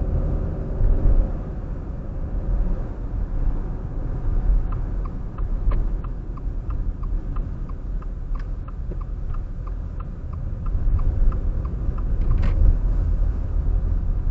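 Steady low road and engine rumble inside a moving car. From about a third of the way in, a turn signal ticks evenly, a little under three clicks a second, and stops shortly before the end.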